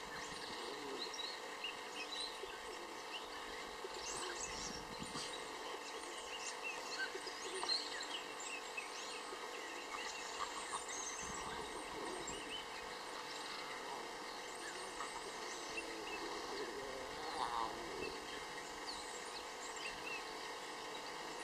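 Faint outdoor ambience of small birds chirping and twittering, many short high calls in a steady background hush.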